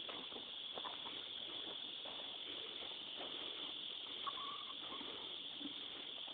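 Faint outdoor ambience: a steady high hiss with scattered soft clicks, and a brief chirp about four seconds in.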